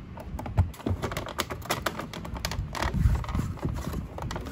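Rapid, irregular hard-plastic clicks and knocks as a new center air-vent louver is pushed and worked into place in a Mitsubishi Lancer dashboard, its plastic parts rattling and snapping under the fingers.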